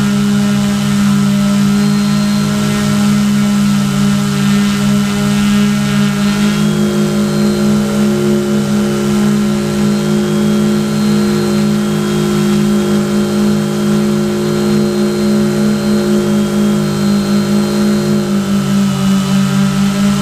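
Quadcopter's electric motors and propellers running steadily in flight, a buzzing hum of several held tones whose pitch shifts about six seconds in.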